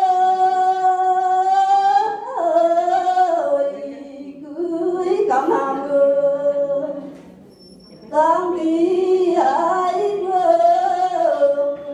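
A woman singing lượn, the Tày folk song, unaccompanied: long held notes on drawn-out vowels that waver slightly in pitch, with a pause for breath about seven seconds in before the next phrase.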